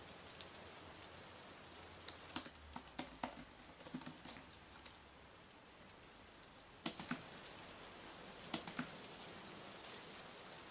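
Typing on a computer keyboard: a flurry of keystrokes about two seconds in, lasting a few seconds, then two short bursts of keys later on, over a faint steady room hiss.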